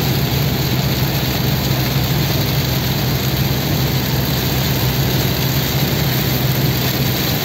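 Inside a car driving in heavy rain: a steady low engine and road drone under a constant wash of rain hitting the roof and windshield.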